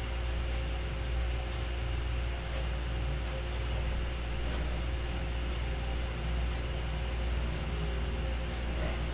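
Steady low electrical hum with room noise, and faint ticks about once a second.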